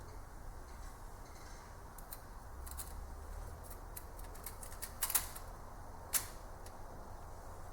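Scattered light metallic clicks and taps of hand tools and small parts during engine assembly, with two sharper clinks about five and six seconds in.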